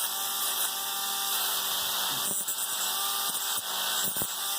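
Small rotary tool running at a steady whine, a wire brush polishing a small metal part of a model train truck.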